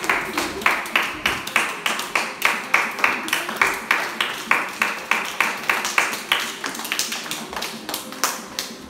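A group clapping hands in unison in a steady rhythm, about three claps a second, growing a little weaker near the end before stopping.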